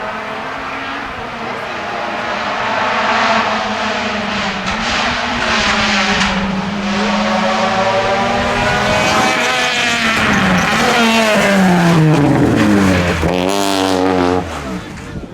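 Rally car engine revving hard through the gears as the car closes in, growing louder. Near the end the pitch falls steeply as it brakes and downshifts, then the sound drops away abruptly.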